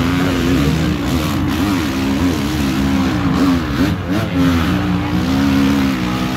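Motocross bike engines revving hard, the pitch rising and falling again and again as riders spin their rear wheels in deep mud, with bikes being pushed through the bog.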